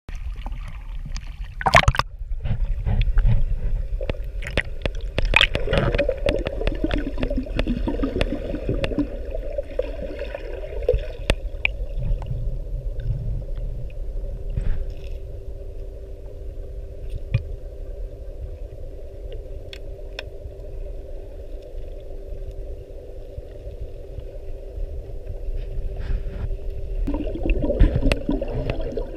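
Water heard through a GoPro's waterproof housing. There is sloshing and a loud splash near the start, then a muffled underwater rumble with scattered small clicks. A steady hum runs from about halfway until shortly before the end.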